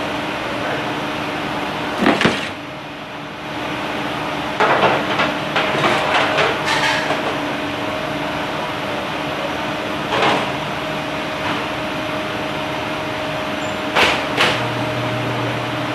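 Metal knocks and clatter of sheet pans and racks being handled in a Vulcan convection oven over a steady ventilation hum; near the end the oven door shuts with a couple of sharp knocks.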